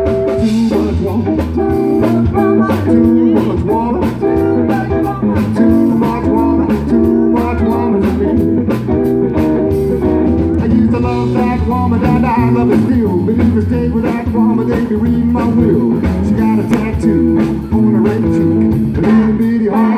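Live blues band playing through a PA, electric guitar over drums with a steady beat and a stepping bass line.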